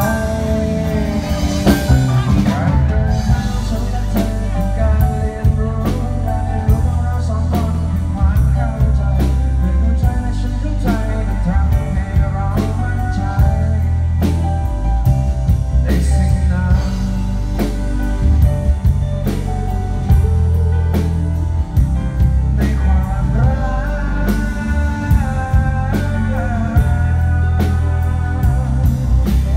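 Live rock band playing loudly through a PA: acoustic and electric guitars, bass guitar and drum kit keeping a steady beat.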